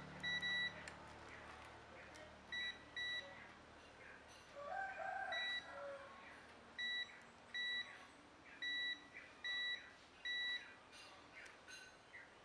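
Digital multimeter in continuity (buzzer) mode beeping, about ten short high beeps at uneven gaps, as the probes touch the phone board's positive line and ground. The beep is the sign of a short circuit to ground.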